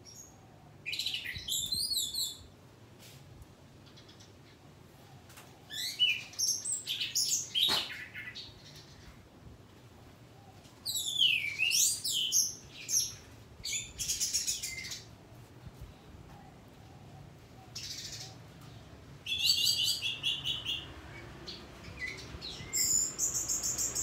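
Orange-headed thrush (punglor) singing: bouts of rapid, varied high notes a second or two long, about five of them, separated by short pauses.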